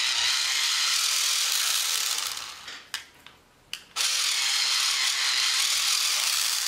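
Pencil sharpener grinding a coloured pencil in two runs of about three seconds each, with a couple of light clicks in the short pause between them.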